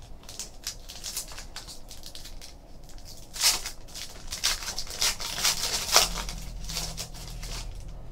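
Foil wrapper of a Panini Select basketball card pack being crinkled and torn open, with the loudest tearing bursts from about three and a half to six seconds in, amid the rustle of cards being handled.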